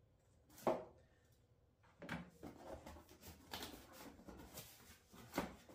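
Cardboard box being opened by hand. A sharp knock comes about half a second in, then flaps and packing scrape and rustle, with another sharp knock near the end.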